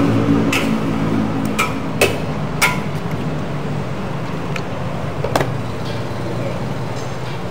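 Kitchen noise: a steady low mechanical hum with a handful of sharp clinks and knocks of utensils, the loudest about two seconds in.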